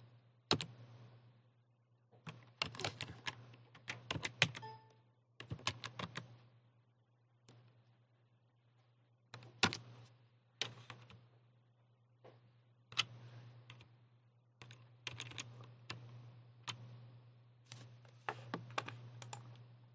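Computer keyboard being typed on: irregular bursts of keystrokes with short pauses between them, over a faint steady low hum.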